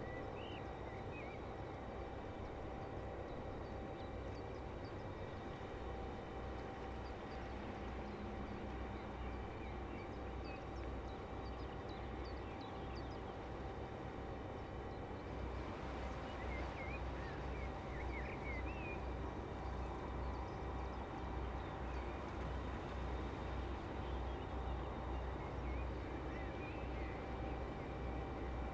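Large crude oil tanker passing close, its engine a steady low rumble with a pulsing throb and a faint machinery hum, growing slightly louder in the second half. Faint bird chirps come in over it, mostly around the middle.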